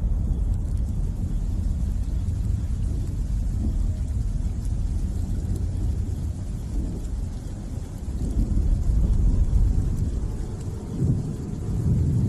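Thunderstorm: a continuous low rumble of thunder that grows louder about eight seconds in and again near the end.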